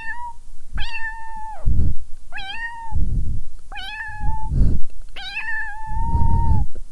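Domestic cat meowing repeatedly: four fairly high-pitched meows about a second and a half apart, each rising quickly and then held, the fourth the longest. Loud low muffled noise comes between the meows.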